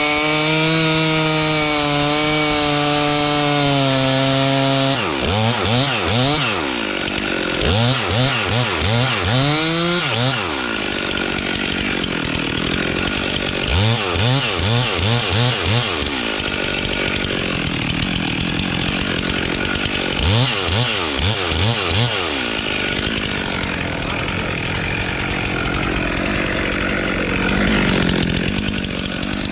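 Gas chainsaw running: at first held at a steady high speed, then blipped up and down in quick repeated revs in three bursts. Between the bursts it runs with a rougher, even noise, cutting wood.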